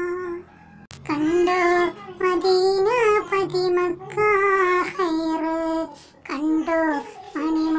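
A single high voice singing a Malayalam Nabidina devotional song in ornamented phrases with wavering held notes. There is a short break with a sharp click about a second in.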